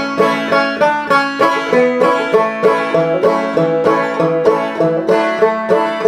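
Open-back banjo played clawhammer style in standard G (open G) tuning: an even, steady rhythm of plucked and brushed notes, with no singing.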